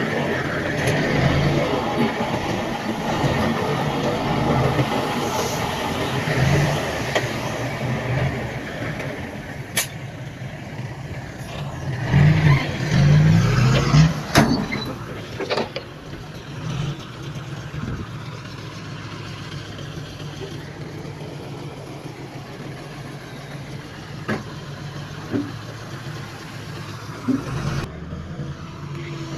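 Heavy diesel machinery running, the low engine note rising in a surge about twelve seconds in, with a few sharp metal clanks.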